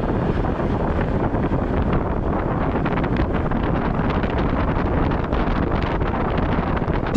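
Steady wind noise on the microphone of a motorcycle-mounted camera while riding a Honda adventure motorcycle, with road and engine noise beneath it.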